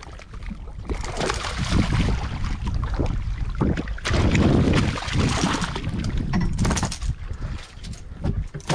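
A hooked barramundi thrashing and splashing at the water's surface beside a small boat as it is hand-gripped and lifted aboard, with a few sharp knocks. Wind buffets the microphone throughout.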